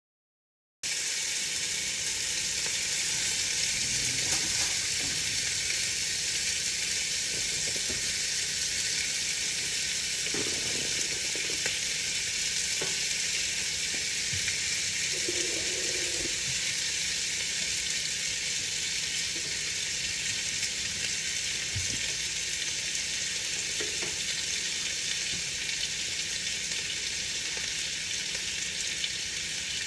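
Steady rain on a window: a dense, even hiss of drops that starts abruptly about a second in, with a few faint soft knocks under it.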